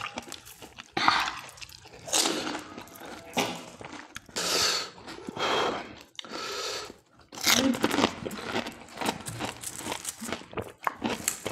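Panipuri being eaten: crisp puris filled with pani crunching as they are bitten, then chewed, with wet slurping, in irregular bursts.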